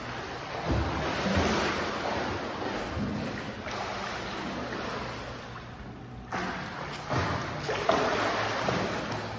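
A swimmer doing front crawl, his arm strokes and kicking feet splashing the water of a swimming pool in uneven surges, with a few heavier slaps.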